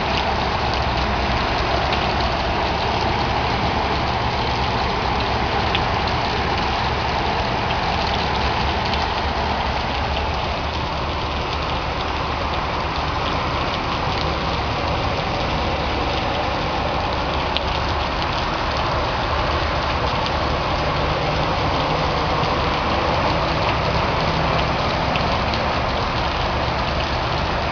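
Heavy rain falling steadily, with the low hum of vehicle engines as traffic drives slowly through the flooded street.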